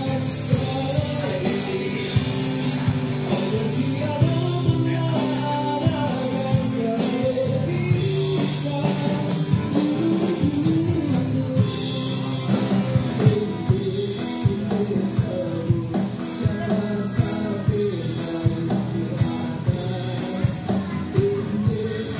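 Live acoustic band: two acoustic guitars strummed to a steady beat, with a man singing a melody through an amplified microphone.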